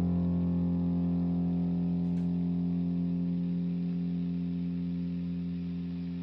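The last chord of a rock song on guitar, held and ringing out as it slowly fades.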